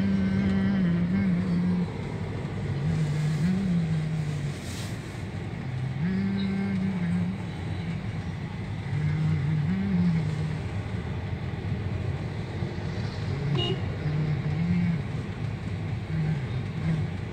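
Car cabin noise while driving slowly through street traffic: a steady hum of engine and road. A low voice is heard in short gliding phrases every few seconds, and there is a brief sharp sound about three-quarters of the way through.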